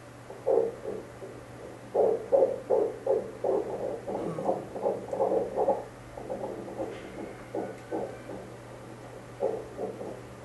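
Fetal heartbeat played as pulsed-wave Doppler audio from a Medison ultrasound machine. It is a rapid, even pulsing of about three beats a second over a low steady hum, loudest from about two seconds in and weaker in the second half.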